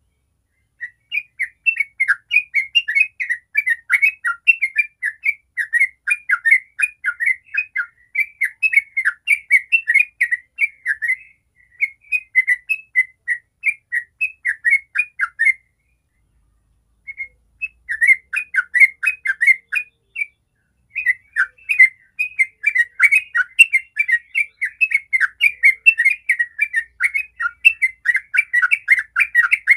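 Yellow-vented bulbul singing its rapid, rolling 'ropel' song: long runs of fast chattering notes. The song breaks off a few times, once for over a second about halfway through, and then resumes.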